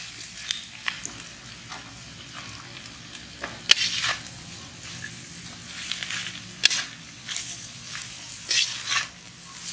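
Shredded cabbage, vegetables and mutton sizzling as they are stir-fried in a large iron kadai, with a long slotted spatula scraping and knocking against the pan at irregular intervals.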